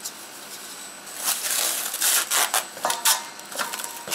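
Plastic cling film pulled off its roll and stretched over a steel bowl, crackling and crinkling in a run of noisy bursts that start about a second in.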